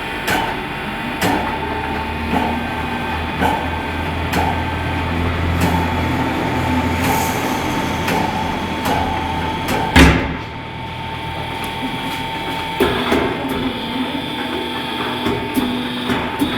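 Tyre-changing work on a large wheel: a machine hum through the first half, repeated knocks, and one loud bang about ten seconds in.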